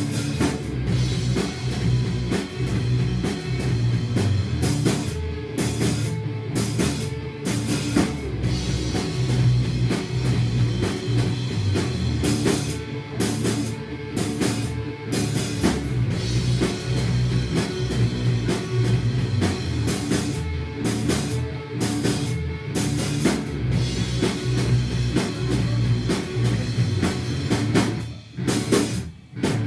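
Rock band playing live: drum kit with cymbals and guitars. The sound drops briefly near the end, then picks up again.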